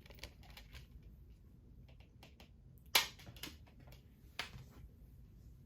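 Light clicks and taps of a metal steelbook case and its Blu-ray disc being handled, with a sharp click about three seconds in and another about a second and a half later.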